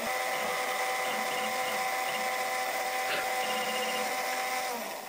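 Shapeoko CNC spindle motor running at speed with a steady whine and hiss while the bit marks the corner of the workpiece, then cutting off near the end.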